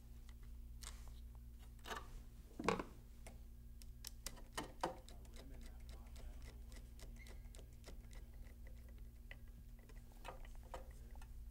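Scattered small clicks and taps of a screwdriver and hardware at the scooter battery's ground terminal as the wire is fastened, the loudest knock about two and a half seconds in. A faint steady hum runs underneath.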